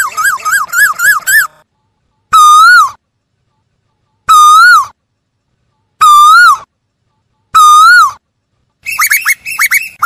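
Asian koel calling: a quick run of rising-and-falling notes at the start, then four loud single notes that rise and fall, spaced about a second and a half to two seconds apart, and near the end another fast run of higher notes.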